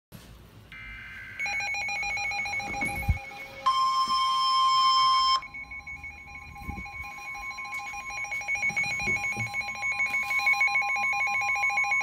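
Midland weather alert radio sounding a severe thunderstorm warning alarm: a rapidly pulsing, high two-pitch electronic beep, with a steady alert tone joining about four seconds in and running under it. A few dull handling thumps.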